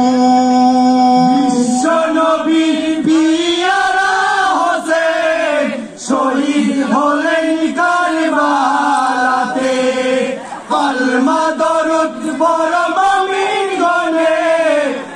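Men's group chanting a marsiya, a mourning elegy, led by a singer on a microphone. It opens on a long held note, then goes on in sung phrases with two short breaks.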